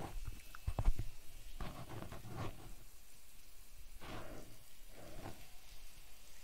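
A few faint clicks close to the microphone, the loudest about a second in, followed by soft rustling noises.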